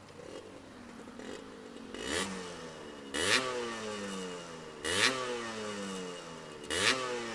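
Suzuki Satria 120R's two-stroke engine blipped four times, each time jumping up in revs with a sharp burst, the revs sinking slowly between blips as the bike comes off speed.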